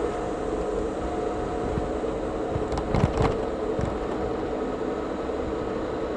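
Steady road and engine hum of a moving car, heard from inside, with a brief cluster of knocks about halfway through.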